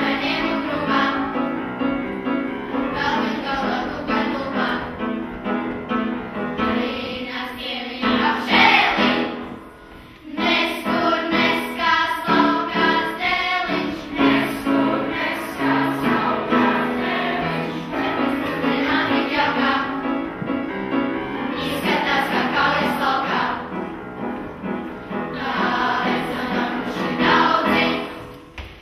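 Large choir of children and teenagers singing together, with a short break between phrases about ten seconds in and again just before the end.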